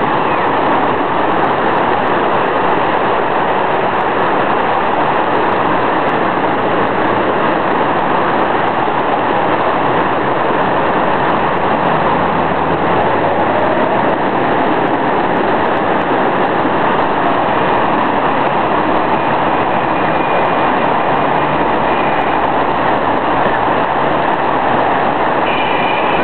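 Flash-flood torrent of muddy water rushing past close by, a loud steady noise of churning water.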